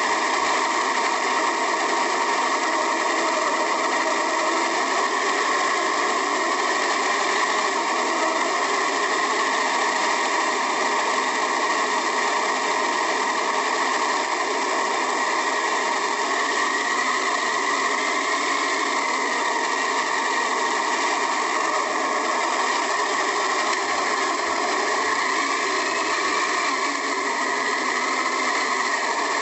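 Drivetrain of an HG-P408 1/10-scale RC Humvee, a small electric motor and gears, running with a steady whir heard from inside the model's cab.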